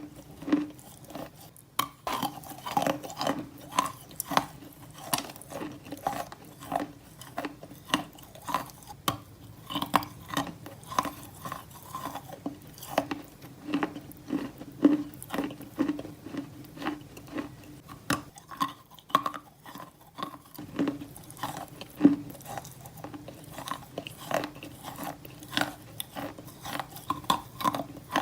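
Wet, sandy, grainy material being crushed, making a string of sharp crunches, about one or two a second, with a gritty rustle between them.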